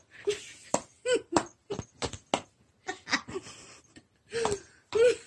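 Calico cat giving a rapid string of short meows, about a dozen in five seconds, each rising and falling in pitch.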